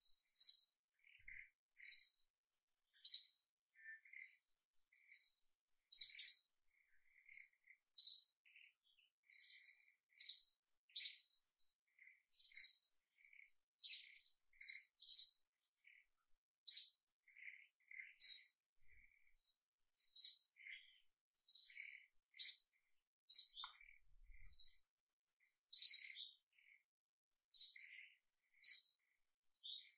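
A bird chirping: short, sharp high notes repeated roughly once a second, with fainter, lower chirps between them.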